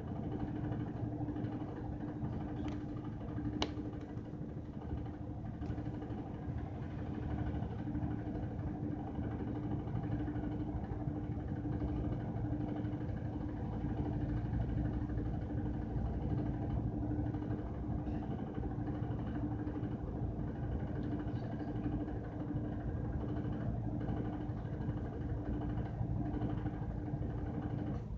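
Washing machine running with a steady, rough motor hum and a constant drone. There is a single sharp click about four seconds in.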